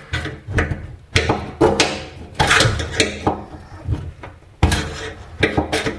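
Screwdriver clicking, knocking and scraping against the mechanical fuel-gauge sender on a 1963 VW Beetle's steel fuel tank: a string of irregular sharp metal knocks.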